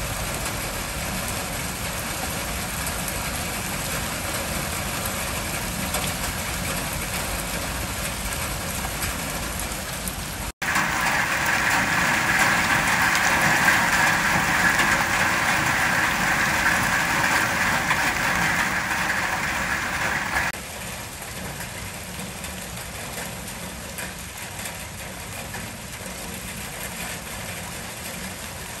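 Heavy rain pouring and splashing on a paved garden path, a steady hiss. It is louder and brighter for about ten seconds from roughly ten seconds in, then drops back to a steadier, quieter patter.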